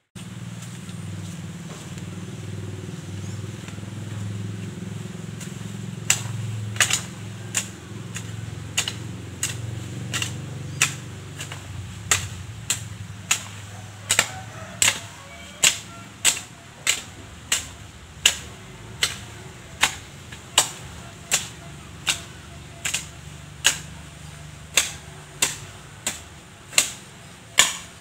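Sharp, evenly spaced chopping strikes, about three every two seconds, start some six seconds in, as overgrown weeds are hacked down by hand with a blade. A low steady rumble lies underneath and is strongest before the strikes begin.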